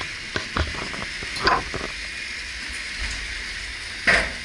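Lynton & Lynmouth Cliff Railway's water-balanced funicular car running into its station: scattered clicks and knocks over a steady hiss. There is a knock about a second and a half in and a louder clank just after four seconds.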